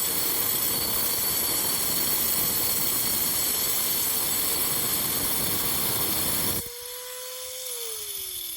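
Angle grinder's abrasive disc cutting through a quartz geode with a loud, steady grinding. About six and a half seconds in, the cutting noise stops abruptly, leaving the motor's whine, which holds briefly and then falls steadily in pitch as the grinder winds down.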